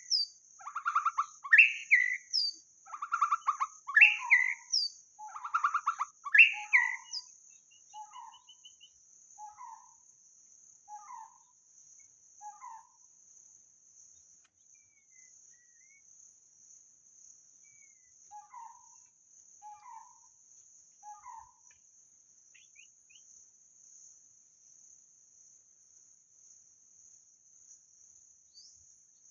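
White-rumped shama singing: loud, varied whistled phrases with rising sweeps for the first several seconds, then soft short notes about once a second that die away after about 13 s, with three more around 19–21 s. A faint steady high insect buzz runs underneath.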